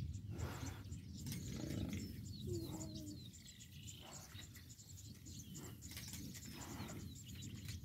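Open savanna ambience: small birds chirping over a steady low rumble. About two and a half seconds in comes one short, low animal call.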